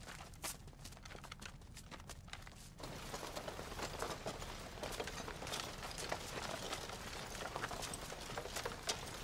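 Footsteps of a group of soldiers on the move, with rustling as they push through undergrowth. The sound is sparse at first and turns into a dense, steady shuffle about three seconds in.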